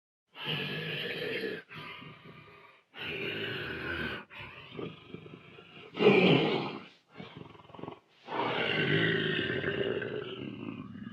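Dinosaur roar sound effects: a run of separate roars and growls, one after another with short breaks between them. The loudest comes about six seconds in, and a long roar starts near the end.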